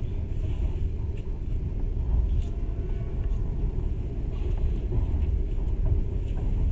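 Passenger train running along the line, a steady low rumble of wheels on rails heard from inside the carriage, with a few faint clicks.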